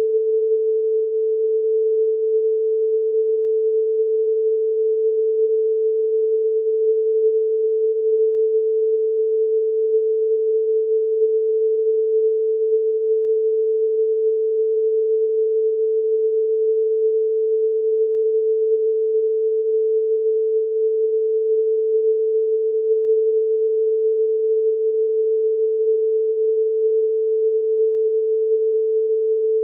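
A continuous electronic sine tone held at one steady pitch, with a faint tick about every five seconds.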